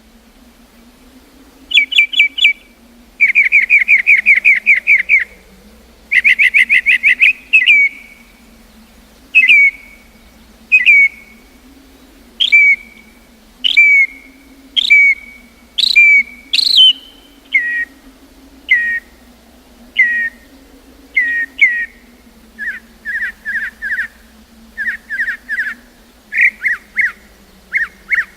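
A songbird singing loud and close: rapid whistled trills in the first few seconds, then a long run of single clear down-slurred whistles about one a second, turning near the end into quick groups of two or three notes.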